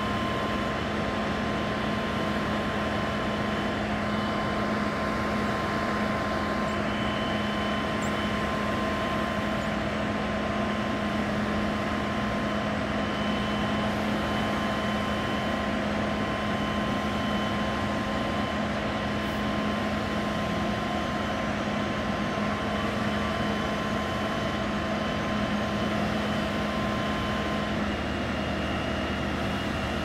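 Mobile crane's engine running at a steady speed while the crane holds a rooftop HVAC unit on its hook: a constant drone with a low hum and a high whine, the whine dropping out near the end.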